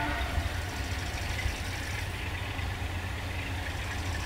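Low, steady rumble of a diesel locomotive's engine out of sight, heard just after its horn stops.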